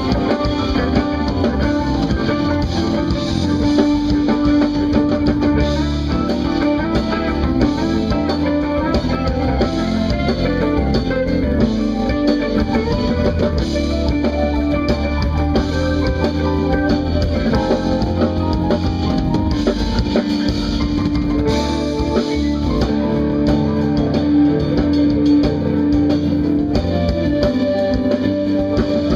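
Live instrumental band playing: electric guitar, keyboards, electric bass and drum kit together at a steady, full level.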